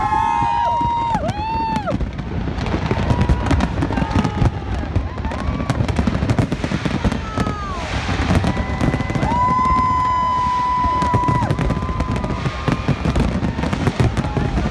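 Fireworks display: a dense, steady run of shell bursts and crackling. Several long high-pitched tones rise, hold and fall over it, the longest about two-thirds of the way in.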